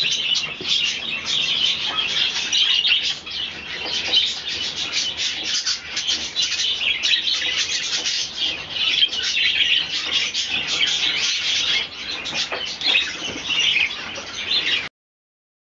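Budgerigars chattering and chirping continuously, a dense warbling flock sound that cuts off abruptly near the end.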